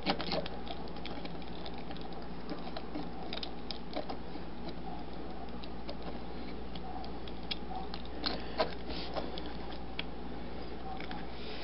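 Scattered light plastic clicks and taps as an action figure is handled and fitted onto a small plastic toy transport, with a couple of sharper clicks about eight seconds in, over a steady faint hiss.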